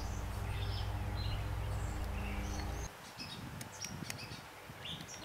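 Birds chirping in short calls, over a steady low hum that cuts off suddenly about three seconds in.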